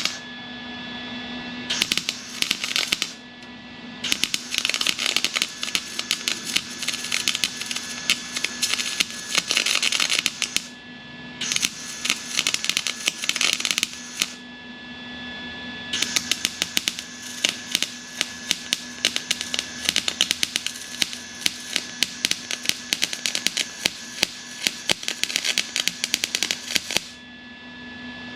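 MIG welder crackling as it welds a steel patch into a sheet-steel bulkhead, in four runs of one to several seconds with short pauses between them. A steady low hum sits underneath.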